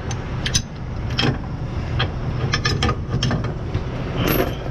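Tow truck's engine idling steadily, with a scatter of short sharp metallic clinks and knocks throughout and a brief hiss near the end.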